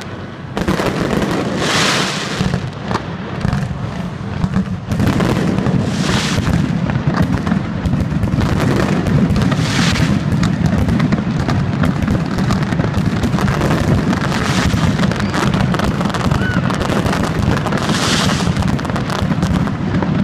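Aerial fireworks display: shells bursting in rapid, overlapping bangs and crackle, growing denser and louder about five seconds in.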